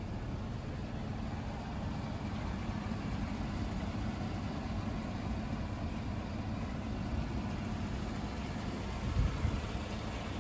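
Chevrolet Silverado pickup's engine idling steadily, with a brief louder low rumble about nine seconds in.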